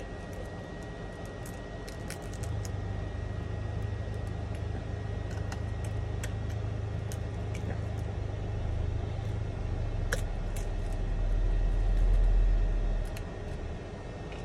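Metal blade scraping and prying cracked iPhone 11 back glass, with scattered small clicks and ticks as glass chips break away. Under it a low steady hum grows into a deeper rumble partway through, which is the loudest sound, and fades out near the end.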